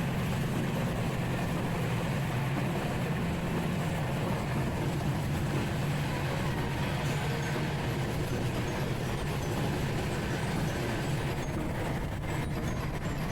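Passenger train running along the track, a steady, even running noise with no breaks.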